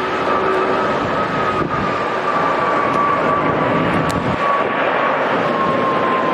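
Airbus A340-500 airliner's four Rolls-Royce Trent 500 turbofan engines on landing approach: a steady jet roar with a thin whine that slowly falls in pitch.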